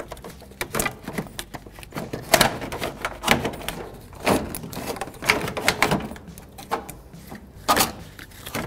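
Irregular plastic knocks and rattles of a car's radiator fan shroud being wiggled and pulled against the radiator. The shroud snags and won't come free.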